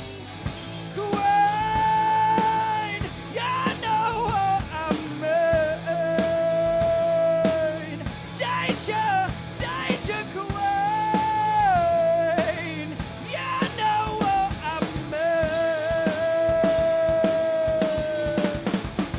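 A rock band playing live on drum kit, bass guitar and electric guitar. Over a steady beat, a melody of long held notes runs in phrases a few seconds long, several ending in a downward slide.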